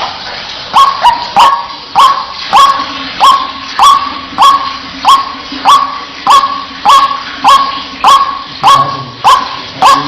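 White-breasted waterhen giving its repeated 'wak' call: a loud, sharp note that sweeps up and levels off, about one and a half a second without a break.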